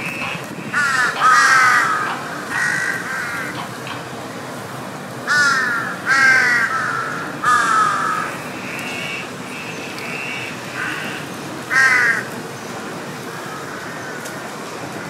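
Crows cawing repeatedly: short harsh calls that slide downward, coming in clusters of one or two every few seconds.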